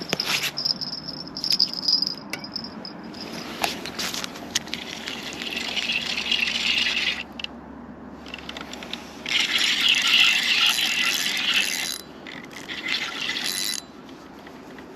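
Fishing reel being cranked in bouts while a roach hooked on a bottom rod is reeled in: rattling, scraping winding with scattered clicks. The longest and loudest bout starts about nine seconds in and stops suddenly about three seconds later.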